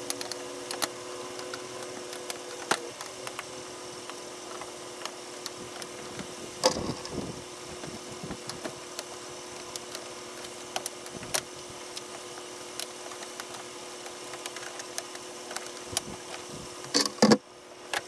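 Plastic push-pin retainers on a pickup's radiator support cover being pried out with a flathead screwdriver: scattered clicks and snaps, the sharpest about seven seconds in and a cluster just before the end.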